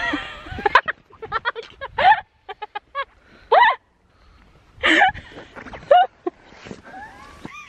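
A woman laughing hard in breathy bursts, with a run of short, quick laughter pulses partway through.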